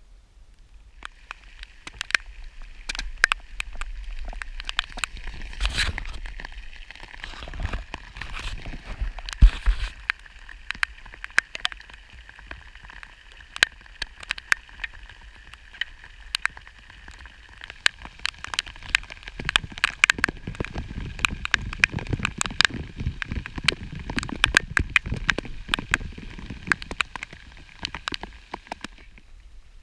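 Rain falling on open water: a steady hiss, starting about a second in, scattered with many sharp ticks of drops landing close by.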